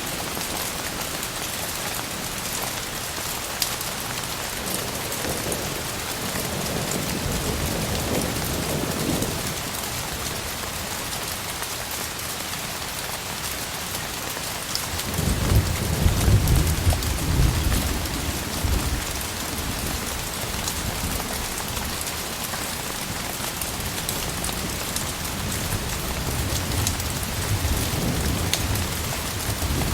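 Steady rain hissing and pattering during a thunderstorm, with low rolls of thunder; the loudest roll comes about halfway through and lasts a few seconds.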